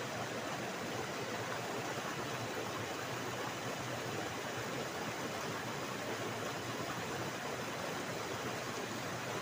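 A stream flowing, with a steady, even rush of running water.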